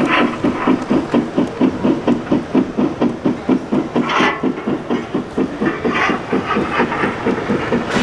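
Large-scale model steam locomotive chuffing in a steady rhythm, about four to five chuffs a second, with short bursts of steam hiss about four and six seconds in.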